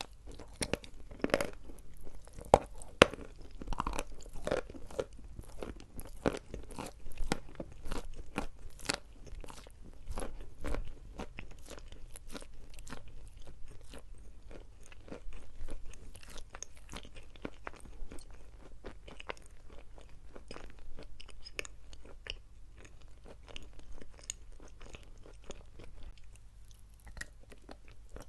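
Dry chalk being bitten and chewed: a dense run of crisp crunching, louder and sharper for the first ten seconds or so, then a softer, finer crackle.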